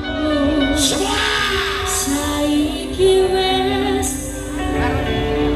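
Loud pop music with a singer, played through a large carnival sound system, with heavy bass underneath.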